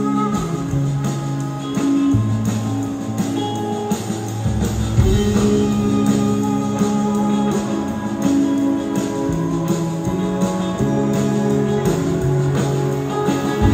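Rock band playing live in a large hall, an instrumental passage with no singing: electric guitar over bass, drums and keyboards, with steady drum hits and bass notes that change every second or two.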